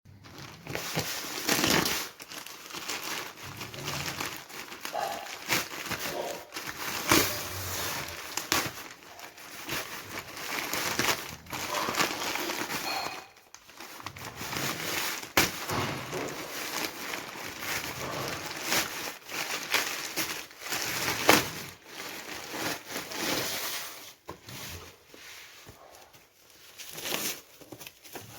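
Packaging being handled and unwrapped: crinkling and rustling with many irregular sharp crackles.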